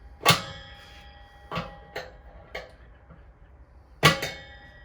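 Metal clanks from patio heater parts and hand tools being handled during assembly: two sharp strikes, about a third of a second in and near the end, ring on briefly with a metallic tone, with a few lighter taps between them.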